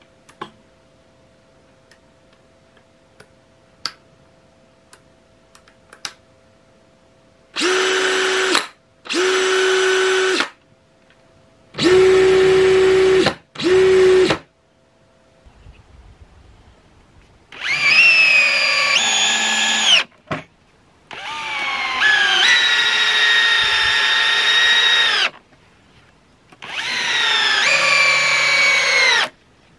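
Yellow DeWalt cordless drill/driver with a screwdriver bit in a magnetic quick-change bit holder. A few light clicks come first, then four short steady spins at no load. Then three longer runs driving screws into wood, the motor's pitch sagging under load.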